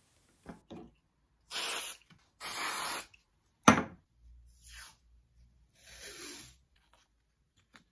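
Two short hisses from an aerosol spray can, the accelerator that sets CA glue, about a second apart, followed by one sharp knock. Fainter rustling and a last brief hiss come near the end.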